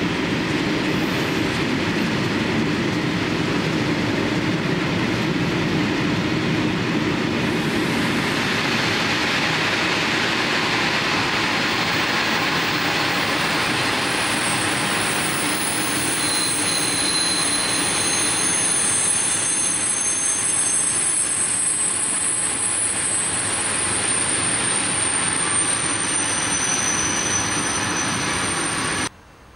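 Freight train of DB Cargo bogie hopper wagons rolling past with a steady rumble of wheels on rails. From about halfway through, high-pitched wheel squeal joins in and keeps on until the sound cuts off just before the end.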